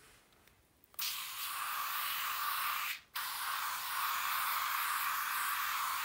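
Aerosol spray-on sunscreen can hissing in two long sprays. The first starts about a second in, and after a short break the second runs on.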